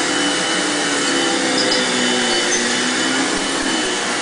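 Red upright vacuum cleaner running, a steady motor whine and rush of air.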